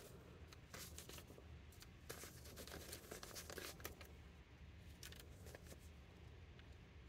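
Faint rustling of paper banknotes being handled and sorted by hand, with soft short crinkles here and there over a quiet room.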